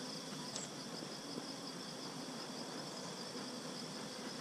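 Honey bees humming steadily around an open hive, with a steady high-pitched insect chorus behind.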